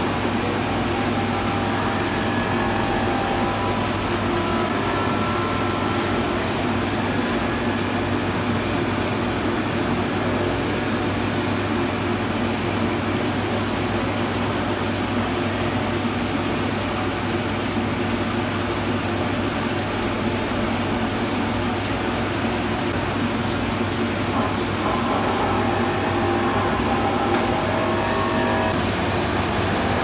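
Industrial glass washing machine running: its roller conveyor and washing section give a steady low hum under an even rushing noise as a glass sheet passes through.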